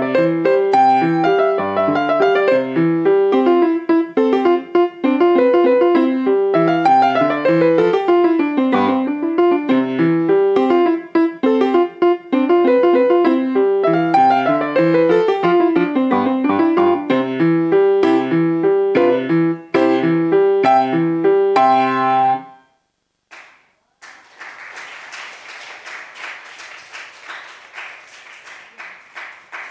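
Solo piano playing a quick piece full of rising and falling runs, which ends about 22 seconds in. After a brief pause the audience claps.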